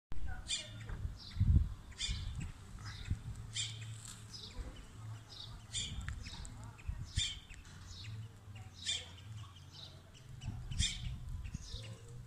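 A small bird repeating a high, downward-sweeping chirp about every one and a half seconds, with fainter chirps between. Under it runs a low rumble on the microphone, with a thump about a second and a half in.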